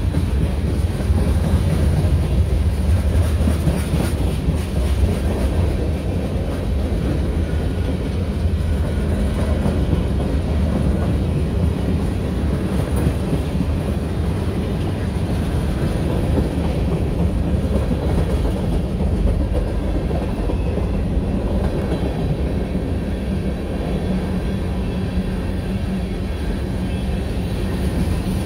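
Freight cars of a mixed freight train rolling past close by: a steady rumble of steel wheels on the rails, with clickety-clack over the rail joints.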